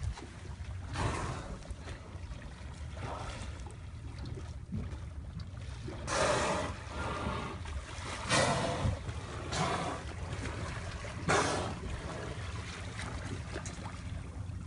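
Killer whales surfacing close beside a boat, giving a series of blows about a second long each, the loudest about six and eight seconds in, over the low steady hum of the boat's outboard motor.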